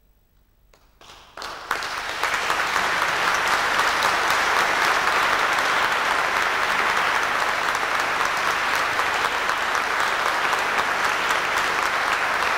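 Audience applauding: about a second of near silence, then the first claps, swelling within a second into full, steady applause.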